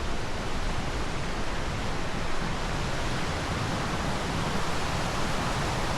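Steady rushing of white water from a mountain creek cascade, an even hiss with no breaks.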